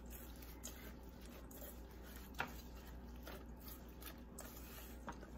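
Spoon stirring shredded purple cabbage slaw dressed with mayonnaise in a bowl: faint, irregular scraping with a few light clicks, one sharper about two and a half seconds in.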